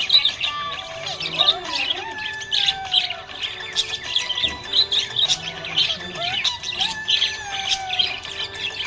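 Budgerigar chirping and warbling without pause: a dense run of quick chirps with some gliding whistled notes.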